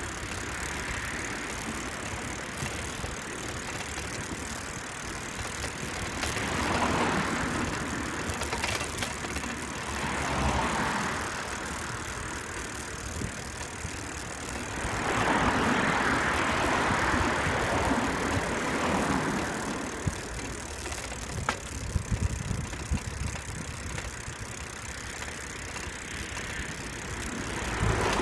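Road traffic passing alongside, cars swelling up and fading away several times over a steady rushing noise of riding, with a few sharp rattles from the bicycle a little past the middle.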